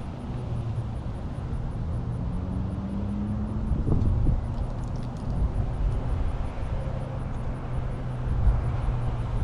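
2020 Honda Civic Type R's turbocharged 2.0-litre four-cylinder running through a muffler- and resonator-delete exhaust, a low engine drone whose pitch creeps up over the first four seconds and then holds steady. A brief thump comes about four seconds in.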